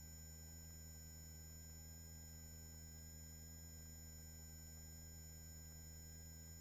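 Near silence: a faint, steady hum with several thin unchanging tones, the residue of the helicopter's headset intercom audio feed with no one talking.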